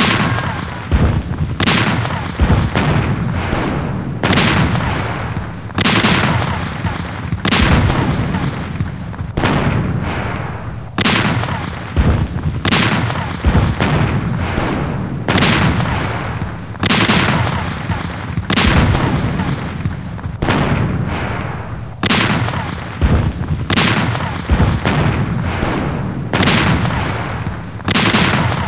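Cannon fire: a steady artillery barrage of heavy booms, about one every second, each dying away under the next.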